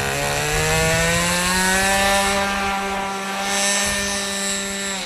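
Radio-controlled model airplane's motor running at high throttle, its pitch climbing over the first two seconds and then holding steady, starting to wind down at the very end.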